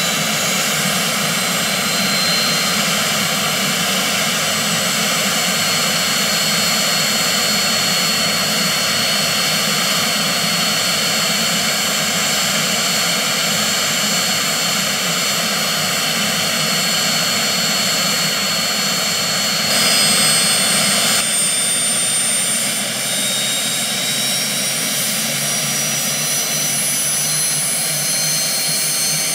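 Turbomeca Artouste IIIB turboshaft engine of an Aérospatiale SA 315B Lama helicopter running on the ground, a steady turbine whine. About 20 s in there is a brief louder rush lasting a second and a half, after which the whine climbs slowly in pitch.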